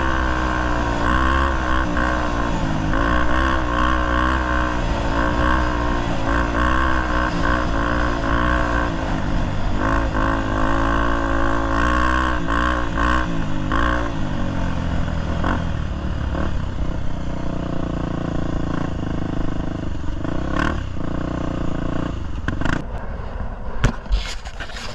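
Enduro motorcycle engine running under way, its pitch wavering with the throttle, then settling to a lower, steadier note about halfway through. A few sharp knocks and clatters come near the end.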